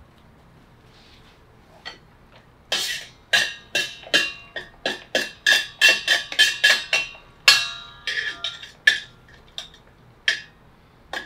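A metal utensil knocking and scraping against the stainless-steel hopper of a hand-cranked tomato strainer as raspberries are pushed down into the auger. It makes a loose run of sharp, ringing clinks, about two a second, starting a few seconds in and stopping near the end.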